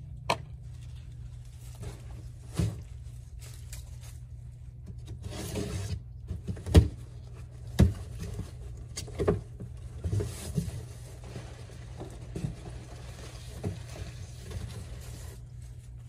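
A cardboard box being opened and unpacked: scattered knocks and thumps with rustling of cardboard flaps and packing, the two loudest knocks about seven and eight seconds in. A steady low hum runs underneath.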